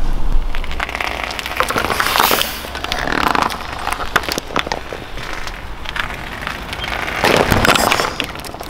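A car tyre rolling slowly onto rubber chicken toys on asphalt, with dense crackling and popping under the tread. There are louder surges about two and three seconds in and again near the end.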